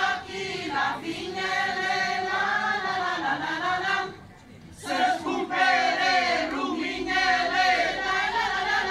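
Group of women singing a folk song together, in two long phrases with a short pause for breath about four seconds in.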